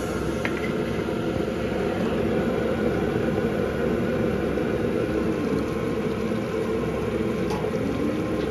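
A steady, fairly loud machine-like whir that runs on without a break.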